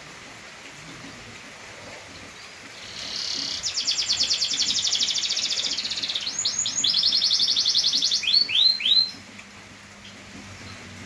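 Domestic canary singing one phrase: a fast rattling trill, a few quick downward-slurred notes, a second trill, and three downward-slurred notes to close.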